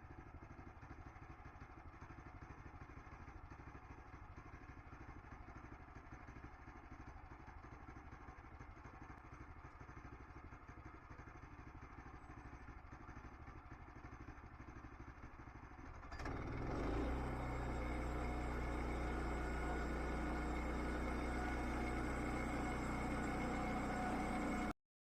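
An engine running steadily, growing louder and fuller about two-thirds of the way through, then cutting off abruptly at the very end.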